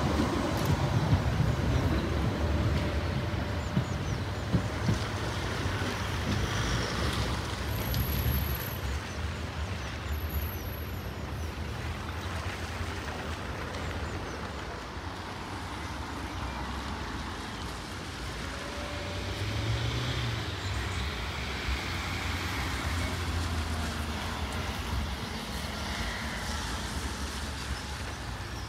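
Sheffield Supertram tram running, a low rumble that is loudest over the first eight seconds or so and then quieter.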